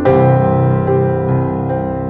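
Instrumental background music: soft electric piano playing sustained chords, with a new chord struck at the start.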